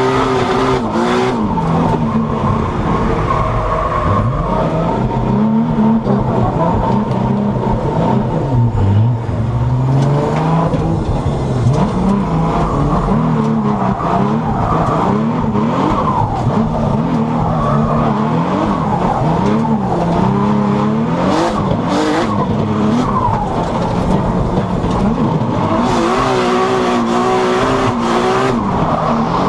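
Engine of a 1000 hp R35 Nissan GT-R D1GP drift car heard from inside the cabin, its revs rising and falling over and over through a drift run, with tyres squealing.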